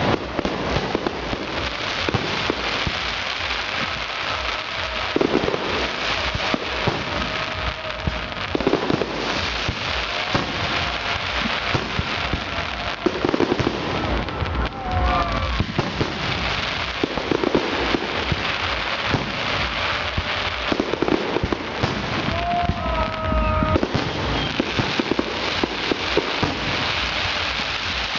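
Fireworks display: a dense, continuous crackle of many small rapid pops from bursting shells, with a few heavier bangs and brief rising and falling whistles.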